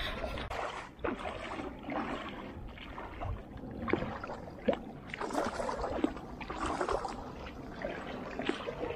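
Shallow river water splashing and sloshing around a person's legs as they wade, in irregular surges.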